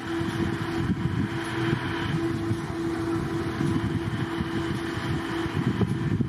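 Wind buffeting the microphone over a steady background of city traffic, with a constant hum.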